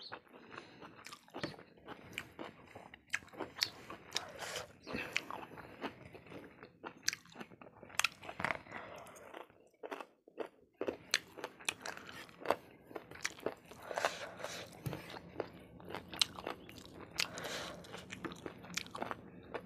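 Close-miked chewing and crunching of food, with many sharp crackly crunches and wet mouth sounds. There is a brief pause about ten seconds in.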